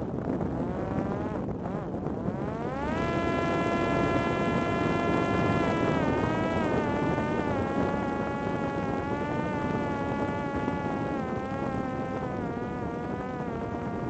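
Parrot Disco fixed-wing drone's electric motor and propeller in flight: a buzzing whine that climbs in pitch over the first few seconds, holds steady, then sinks slightly and wavers as the throttle eases. Wind rushes steadily underneath.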